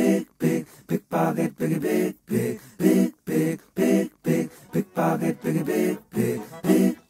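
Rhythmic a cappella vocal chant: short voiced syllables, about three a second, with no instruments.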